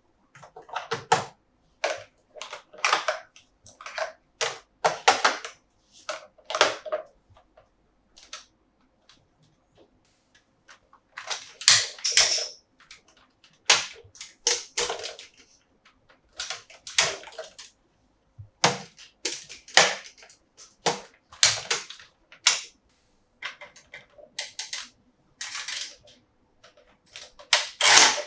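Hard plastic toy pieces clicking, snapping and knocking together as they are handled, in irregular sharp clicks with a few longer scraping rustles.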